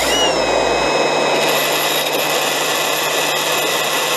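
STIHL MSA 300 battery chainsaw's electric motor starting abruptly, rising briefly in pitch, then running at a steady high whine on its eco power setting, at about 10,000 rpm at the clutch.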